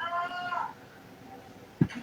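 A domestic cat meowing once, a single drawn-out meow of under a second, followed near the end by a brief sharp click.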